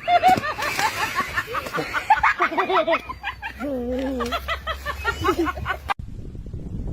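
People laughing in quick repeated bursts, with a voice crying out. About six seconds in it cuts off abruptly to a low rumble of wind on the microphone.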